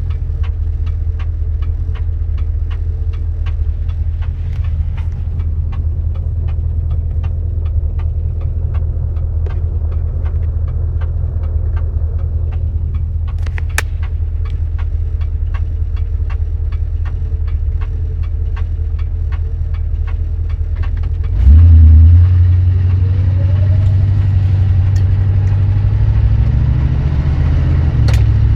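1973 Dodge Dart's 318 V8 running with a steady low rumble and a regular ticking, a tick the owner cannot place and links to the car's 904 automatic transmission. About 21 seconds in, the engine suddenly gets louder and climbs in pitch as it revs up.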